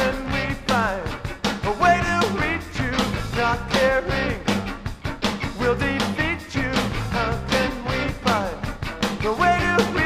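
Late-1980s indie rock recording transferred from a 7-inch vinyl single: a full band with regular drum hits under a lead melody that slides up and down in pitch.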